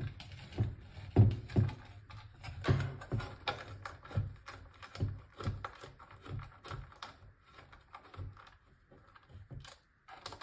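Irregular clicks and knocks of hands handling a plastic battery casing while turning its screws in with a small precision screwdriver, with a few duller thumps.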